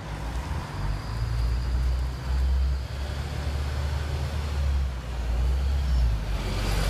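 Street traffic: a steady low rumble of a city bus and cars passing, rising into a rush of hiss near the end.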